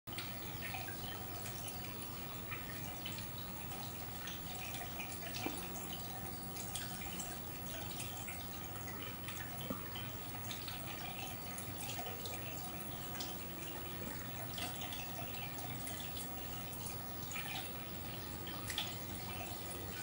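Aquarium water trickling and dripping at the surface: a steady splashing with frequent small irregular drips and plops.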